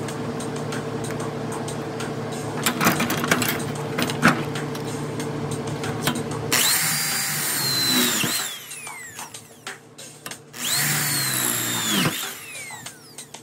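Electric drill with a keyed chuck running in two bursts as the bit drills down through the doweling jig's steel guide bushing. Each burst has a high whine that falls away as the drill stops. Before them there is a steady hum with a few clicks.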